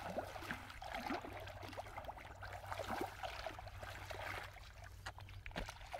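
Bare feet wading through ankle-deep muddy water, with irregular small splashes and squelches at each step.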